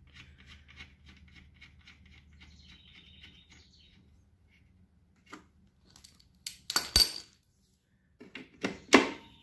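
A steel drain bolt is threaded into the mower's engine by hand, with faint rapid ticking. Then come sharp metallic clinks and ratchet clicks as a 10 mm socket on a ratchet goes onto the bolt and snugs it down. The loudest clink is about seven seconds in.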